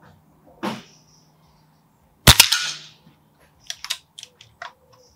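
Reximex Myth .22 PCP air rifle firing one shot, a sharp crack with a short ring-out a little over two seconds in. This follows a brief rush of noise under a second in and is followed by a quick run of small mechanical clicks as the action is cycled to chamber the next pellet from the magazine.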